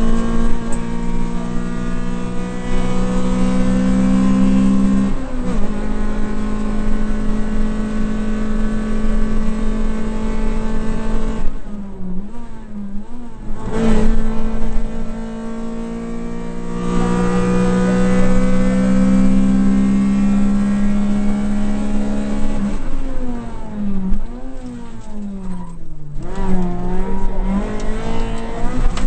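Rally car engine at full throttle heard from inside the cabin, the revs held high and climbing slowly along the straights. Twice, around 12 and 24 seconds in, the revs dip and jump up and down as it lifts off and changes down for corners, then it pulls hard again.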